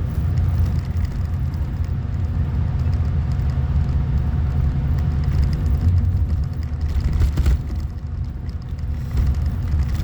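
Steady low rumble of a motor vehicle running, with a few faint steady hum tones above it.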